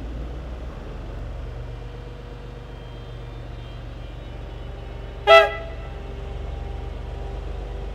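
A train horn gives one short toot about five seconds in, the loudest sound here, over a steady low rumble.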